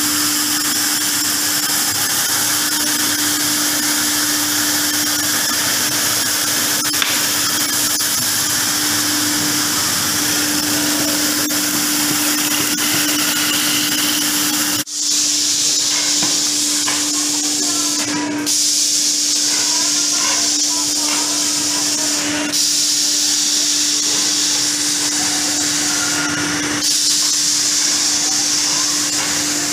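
Woodworking machinery running continuously: a steady motor hum under a loud hiss, as a dowel rounding machine spins and cuts wooden dowels. The noise dips for a moment about halfway through and then carries on.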